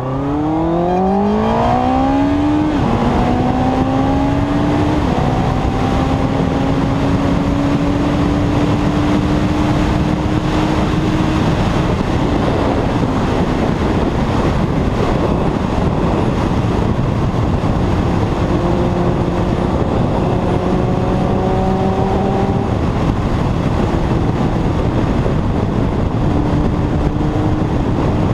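A 2001 Yamaha YZF-R1's inline-four engine accelerating hard, its pitch climbing steeply and dropping at two quick upshifts in the first five seconds, then rising slowly at speed. Heavy wind rush on the helmet-mounted camera runs throughout, and about twelve seconds in the engine note sinks under it as the throttle eases. The note comes back twice later on, once past the middle and again near the end.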